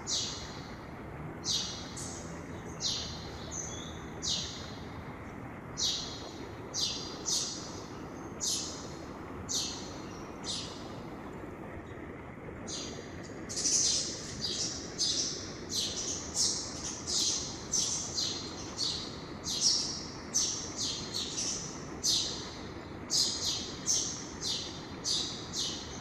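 Mountain river rushing steadily, with a songbird chirping over it in short, high, repeated notes. The chirps come about once a second at first and crowd closer together and louder from about halfway through.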